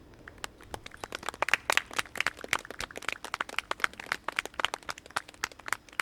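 A small group of people clapping: scattered, irregular claps of varying loudness that start about half a second in and keep going.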